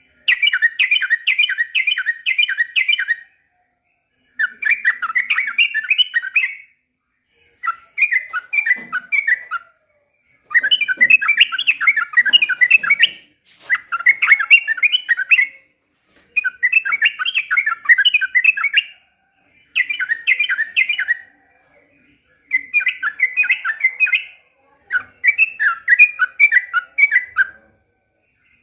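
Yellow-vented bulbul (trucukan) singing: repeated bursts of rapid, bubbling chattering notes, each phrase two to three seconds long with about a second's pause between, nine phrases in all.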